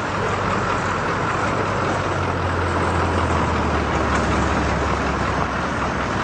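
Tow truck engine running with a steady low hum, a little louder through the middle and easing near the end.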